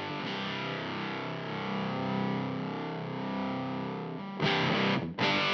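Electric guitar played through a Teisco Fuzz pedal with its gain all the way down, into a Marshall Origin 50 amp: a mildly fuzzy chord rings out for about four seconds, then is struck again twice near the end.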